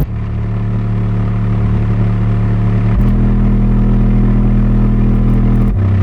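Pyle Blue Wave 10-inch dual-voice-coil subwoofer playing loud, steady deep bass tones with a buzz of overtones above them, stepping to a new pitch about three seconds in and again near the end.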